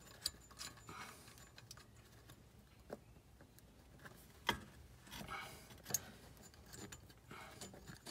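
Faint metallic clicks and ticks of a small brake-line bracket nut being spun off its threaded stud by hand, with a few sharper clicks, the loudest about halfway through.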